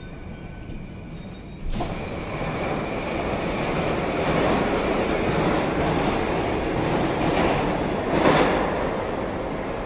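Metro train noise at a station: the Oka car's doors open about two seconds in, letting in the loud, steady rumble of a train running along the opposite track. The rumble swells once more near the end.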